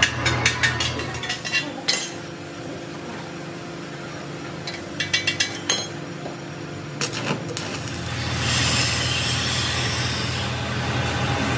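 Clusters of light metallic clinks and taps, as of steel parts and hand tools being handled and struck: several in the first two seconds, more about five seconds in and again about seven seconds in. A low steady hum runs under them, and a hiss builds from about eight seconds in.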